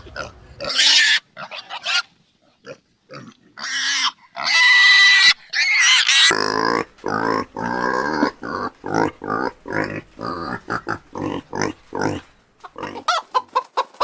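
Pigs squealing in short, high cries, then from about six seconds in a quick run of short grunts, several a second.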